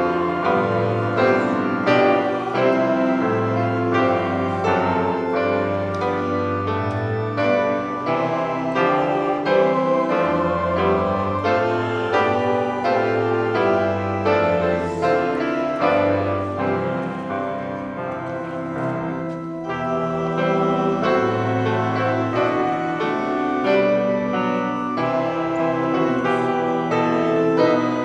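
Piano playing an unhurried instrumental piece, with low sustained bass notes under a moving melody.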